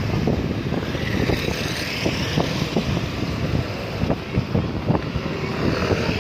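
Wind buffeting the microphone in irregular low thumps over a steady rumble of road traffic; no bus horn is sounding.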